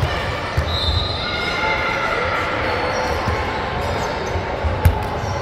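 Basketball bouncing on a hardwood gym floor in a large echoing hall, with short high sneaker squeaks and a background murmur of voices; a sharp knock about five seconds in.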